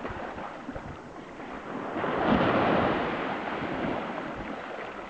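Small wave washing up onto a sandy beach and running back, its rush swelling about two seconds in and then fading.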